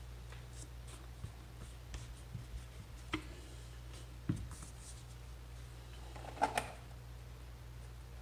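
Faint handling noise as a screwdriver and a rubber recoil pad are worked against a wooden shotgun stock: light rubbing and scattered small clicks and knocks, the loudest about six and a half seconds in, over a low steady hum.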